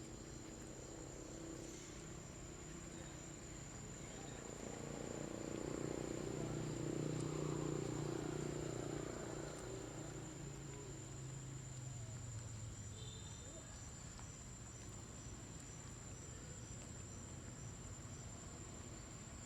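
A steady high-pitched insect drone, crickets or similar, with a low rumble that swells and fades over several seconds in the middle.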